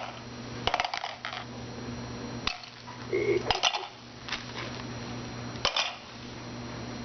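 Small plastic toy pieces clicking and clattering against each other and a box in several separate short rattles, as pieces are handled and put away.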